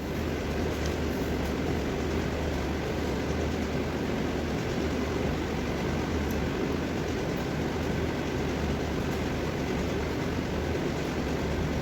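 Steady rushing background noise with a low hum underneath, even throughout and without distinct knocks or clicks.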